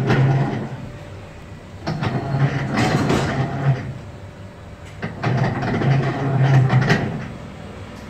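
LG TurboDrum top-loading washing machine agitating in its wash cycle: the motor and gearbox run in bursts of about two seconds with a low hum and clicking rattle, pausing for about a second and a half between them as the pulsator turns back and forth. The gearbox is very noisy while washing, the sign of worn gearbox bearings.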